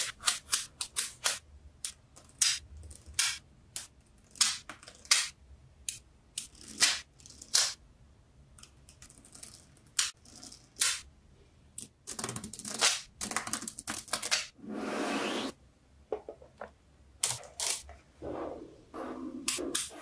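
Small magnetic metal balls clicking and snapping together as they are handled and pressed into place, in sharp irregular clicks. About twelve seconds in the clicks crowd into a denser clatter with a brief rattling rush, as of a strand of balls sliding together.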